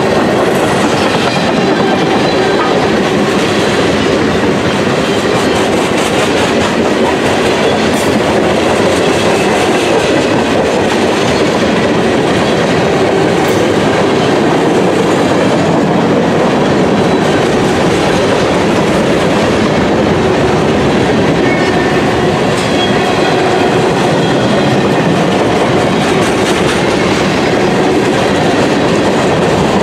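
Freight cars of a CSX mixed freight train rolling past: steel wheels on the rails give a loud, steady rumble and clatter.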